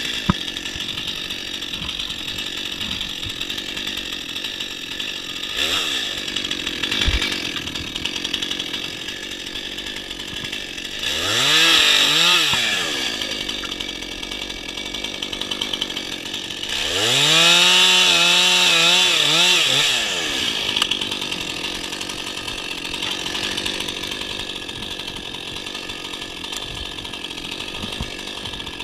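Gas chainsaw idling steadily, revved up twice to cut into a fallen tree's trunk and limbs: a short burst about eleven seconds in, then a longer cut of about four seconds, the engine pitch climbing and dropping back each time.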